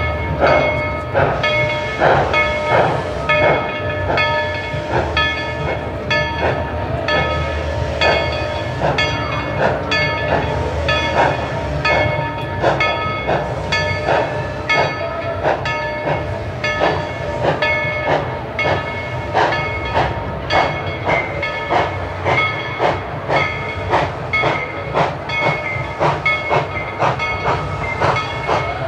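Tweetsie Railroad's narrow-gauge steam train running along, with a regular clatter about twice a second over a low rumble and steady tones held through it.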